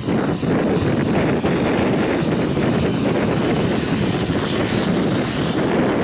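Align T-Rex 500 electric RC helicopter flying low and close, its main rotor making a steady rushing noise, with a faint high whine coming in near the end.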